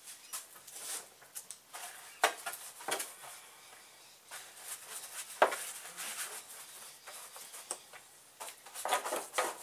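A paintbrush dabbing and working catalysed resin onto the fibreglass inside of a car's front bumper, with irregular light taps and scrapes. The sharpest knock comes about five seconds in, and the taps cluster again near the end.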